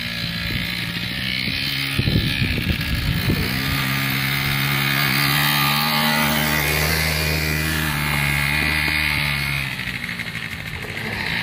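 Small youth quad ATV engine running at a steady pace, loudest as it passes close by and then quieter as it pulls away. There is a brief spell of low rumbling about two seconds in.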